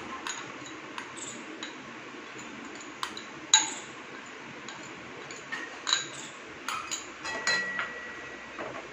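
A steel spoon clinking and scraping against a ceramic bowl as a wet chili paste is scraped out into a pan. There are a handful of sharp clinks, the loudest about three and a half seconds in and a quick cluster near the end, over a faint steady hiss.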